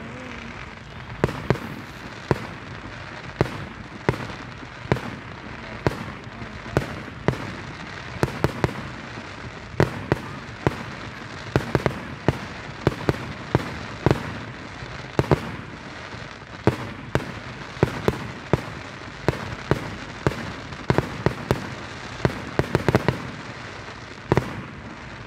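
Aerial fireworks exploding: a steady string of sharp bangs at irregular intervals, roughly one to two a second.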